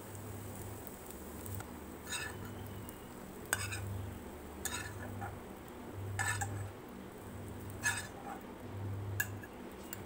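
A spatula scraping and knocking against a nonstick frying pan about six times as scrambled egg is scooped out of it. A faint low hum comes and goes underneath.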